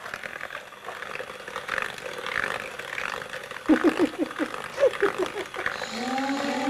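Hand-held electric mixer beating butter and sugar in a plastic bowl, a scratchy whirring with the beaters knocking the bowl. People laugh about four seconds in, and music starts near the end.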